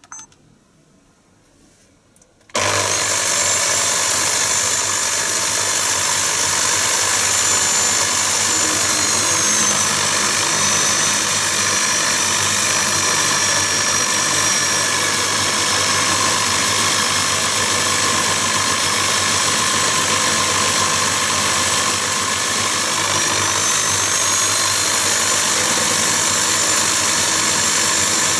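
Near silence with a single click, then, about two and a half seconds in, a Myford ML7 lathe set up for milling comes in suddenly and runs steadily. Its high whine drops a little and later rises back.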